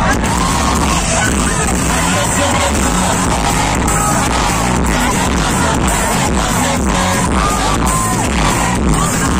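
Loud live concert music over a PA system, with strong bass, heard from within the audience; voices sing along over it.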